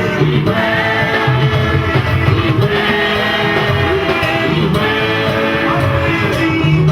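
Music with singing over a band, playing steadily throughout.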